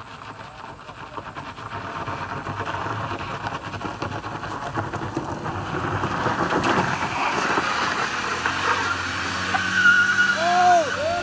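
Small front-wheel-drive MPV revving hard as it climbs a loose gravel slope, front tyres spinning and scrabbling for grip and throwing up gravel. It grows louder as it comes near. Close to the end come a few short rising-and-falling squeals.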